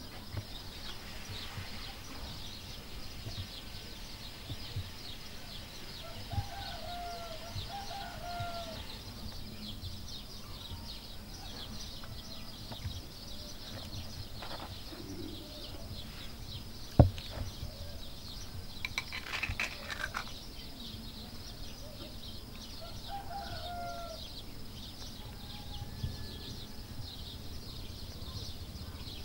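Rural outdoor ambience of birds chirping and calling over a steady high chirring, with a few short calls now and then. A single sharp click a little past halfway.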